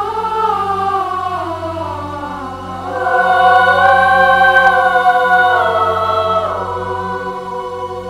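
Choir singing long held notes with no clear words, swelling to its loudest about three seconds in and sliding down in pitch near the end.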